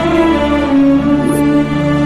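Background music: a melody of long held notes that move to a new pitch about every half second.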